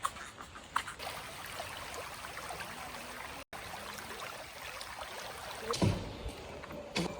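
Steady trickling and rushing of a small stream, with a few light clicks near the start and a low thump about six seconds in. The sound cuts out for an instant midway.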